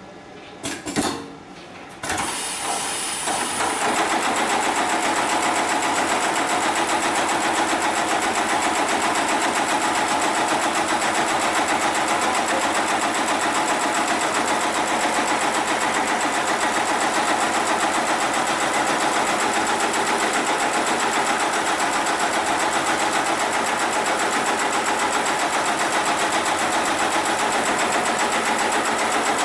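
Hightex 733 computerised pattern sewing machine stitching polyester lifting-sling webbing. A few short clicks come first, then about two seconds in the machine starts up and runs continuously at a steady high speed.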